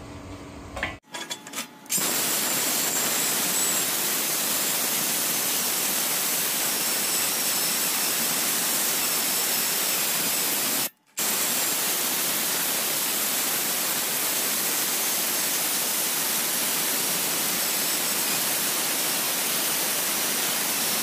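Milwaukee M12 cordless circular saw with a metal-cutting blade cutting through structural steel: a few short bursts as it starts, then a steady, even hiss-like cutting noise. It drops out abruptly for a moment about halfway through.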